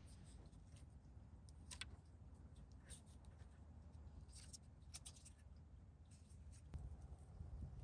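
Near silence, with a few faint, scattered light clicks and taps: small plastic parts being handled as the turn signal's wiring connector is worked out through its spacer.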